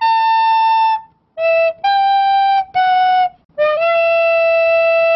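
Intro jingle music: a slow solo melody of separate held notes on a single wind-type instrument, the last note held for about two seconds.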